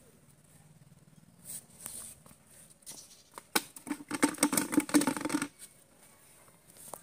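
Small freshly caught fish thrashing in a plastic bucket: a rapid patter of slaps lasting about two seconds, starting about three and a half seconds in.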